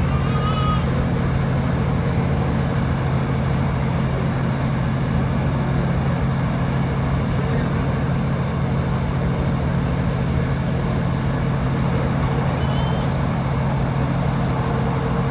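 Class 156 Super Sprinter diesel multiple unit heard from inside the carriage while under way: a steady low drone from its underfloor diesel engine over the rumble of the wheels on the track. A brief high-pitched voice cuts in near the start and again near the end.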